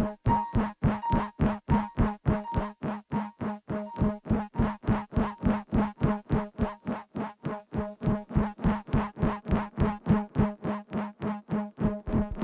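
Instrumental electronic music: a synth note pulsing rapidly and evenly, about four to five pulses a second. Deep bass comes in near the end.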